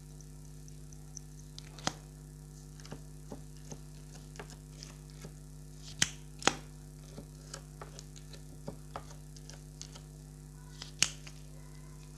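Clear slime being pressed and worked by hand, giving off irregular small clicks and pops, with a few louder pops about two seconds in, twice around the middle, and near the end.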